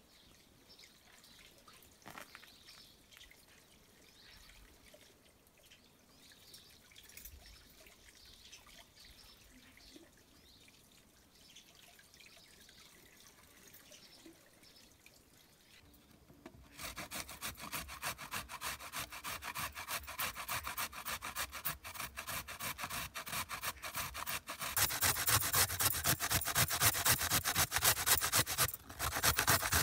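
Faint trickle of water running from a hose spout. Then, a bit past halfway, carrots being grated on a metal box grater: fast, even rasping strokes that get louder in the last few seconds.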